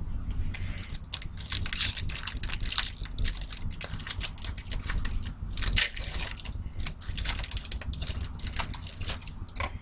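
Crimped foil wrapper of a trading-card pack being torn open and crumpled by hand: a dense run of crinkling, crackling rustles.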